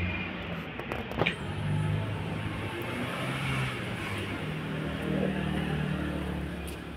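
A motor vehicle's engine running with a low, steady drone that shifts slightly in pitch, with one sharp click about a second in.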